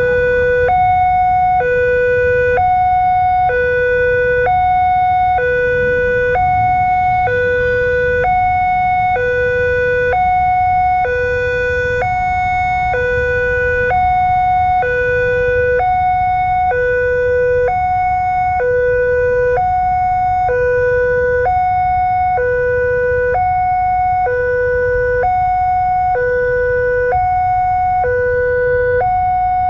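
Railway level-crossing alarm sounding a steady two-tone hi-lo wail, like an ambulance siren, alternating between a lower and a higher pitch about once a second.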